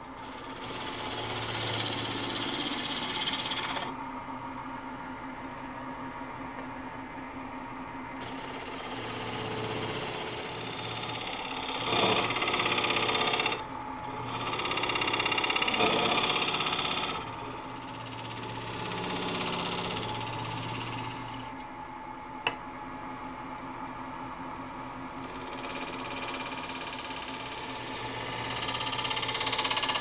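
A wood lathe runs with a steady hum while a gouge cuts a spinning wet-wood bowl blank, in repeated bursts of cutting noise as shavings come off, the loudest about halfway through. One sharp click comes a little past two-thirds of the way through.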